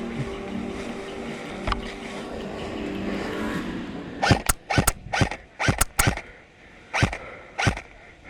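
A steady low hum with several held tones through the first half, then a string of about a dozen sharp airsoft rifle shots from about four seconds in, fired singly and in quick pairs.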